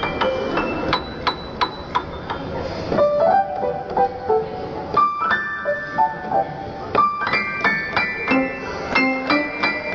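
Piano music: a quick run of separate notes, with several sounding together as chords at times.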